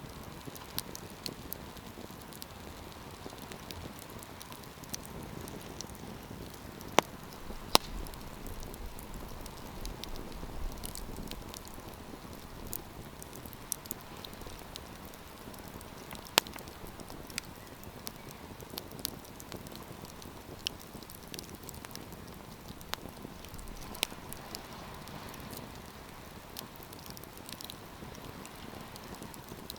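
Wood campfire crackling: a steady soft hiss with scattered sharp pops and snaps, the two loudest about seven and eight seconds in.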